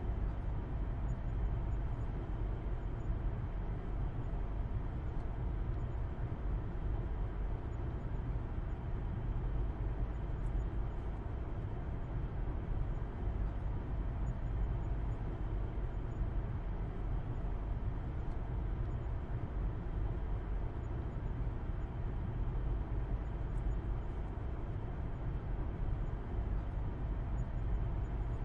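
Car driving at a steady speed, heard from inside the cabin: a low, even rumble of engine and road noise, unchanging throughout.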